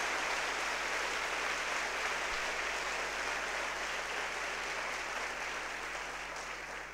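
A large seated audience applauding steadily, tapering off near the end.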